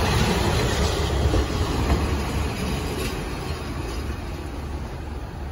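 KiHa 40 diesel railcar rolling slowly along the platform and coming to a stop, its wheels and running gear rumbling, the noise dropping off steadily as it slows.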